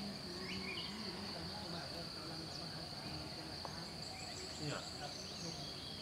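Insects calling in a steady high-pitched drone, like a cricket chorus, with a few short faint chirps over it and a low murmur underneath.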